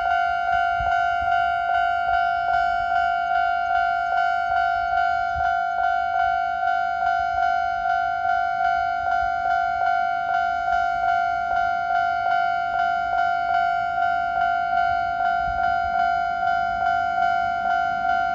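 Japanese railway level crossing alarm ringing its steady electronic 'kan-kan' bell, an even pitched ding repeated a little over twice a second.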